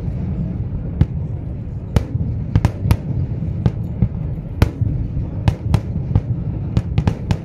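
Fireworks display going off: an irregular run of sharp bangs and cracks, about two or three a second, over a steady low rumble.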